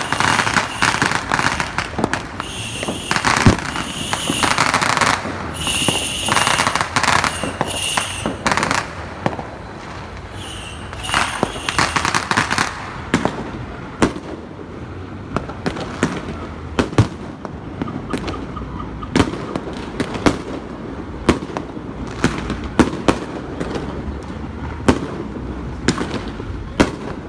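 Fireworks going off in the sky: dense crackling and popping for about the first twelve seconds, then separate sharp bangs about once a second.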